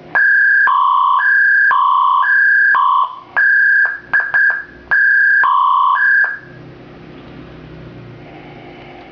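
Electronic police siren module sounding a two-tone hi-lo pattern, a high and a low tone alternating about every half second. Partway through it breaks into a few quick short blips, then resumes the hi-lo alternation and stops a little after six seconds in.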